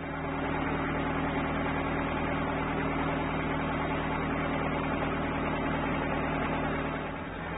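An engine running steadily, a constant low hum under a steady hiss, easing briefly near the end.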